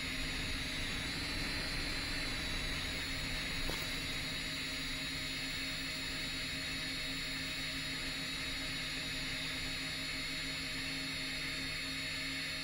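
10-inch FPV quadcopter's motors and propellers whirring steadily in flight, heard from on board under a layer of hiss, the pitch rising slightly a second or two in.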